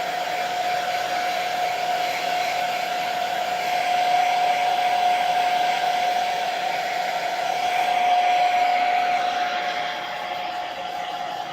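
Blu turbo ionic hair dryer running steadily: a rush of air with a single steady whine through it. It gets a little quieter near the end.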